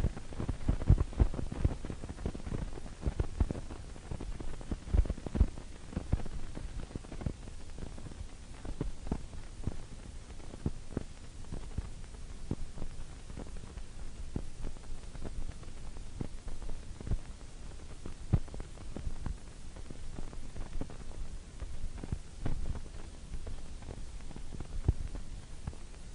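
Irregular low thumps and knocks over a faint steady hum, thickest in the first few seconds and sparser after that.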